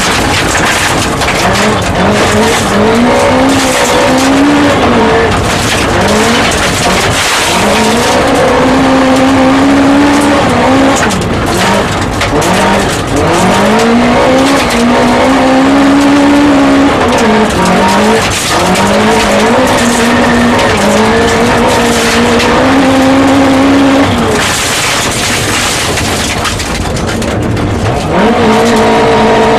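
Rally car engine heard from inside the cabin at full throttle, its pitch climbing and then dropping again many times as it changes gear and lifts for corners. Under it runs a steady rush of tyres on gravel, with frequent sharp knocks.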